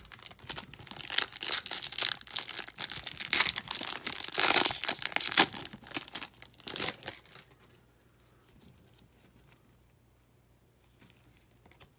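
Foil trading-card pack wrapper being torn open and crinkled, a rapid, busy crackling that stops about seven seconds in.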